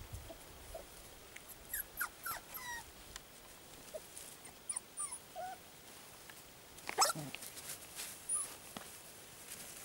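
Young puppies, about 4½ weeks old, whimpering and yipping in short, high, squeaky calls that rise and fall in pitch. One louder, sharp sound comes about seven seconds in.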